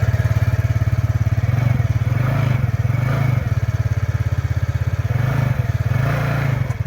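TVS Ntorq scooter's single-cylinder engine idling steadily, without the rattle from its one-way starter clutch: the loose nut holding the clutch has been tightened, which the mechanic says has stopped the noise completely.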